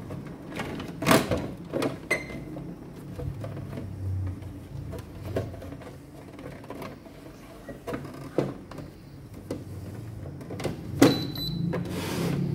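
Plastic cover of an APC Back-UPS 700 being handled and fitted back onto its case: a series of light knocks and clicks of plastic on plastic, the loudest near the end as it is pressed home.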